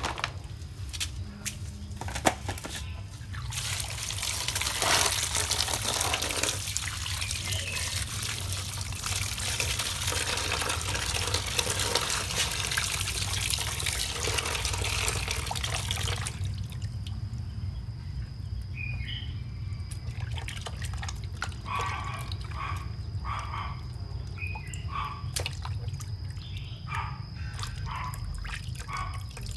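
Water running from a tap as raw frogs are rinsed for washing, a steady rush that stops abruptly about halfway through, followed by scattered drips and small splashes as they are handled in the water. A steady low hum sits underneath.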